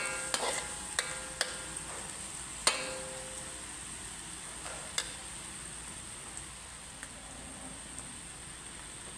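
Metal spatula scraping and tapping against a metal wok while stir-frying seasoned pork belly, over a steady sizzle. The strokes come often for about the first three seconds, then thin out to a few single taps.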